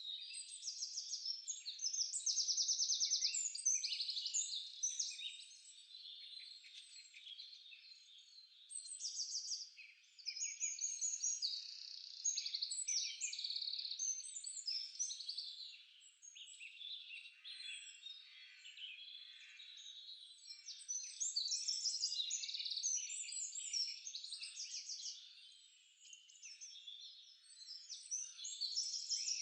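Dense chorus of many songbirds chirping and trilling over one another, with rapid trills, from a nature sound-effects track. The chorus swells and thins repeatedly.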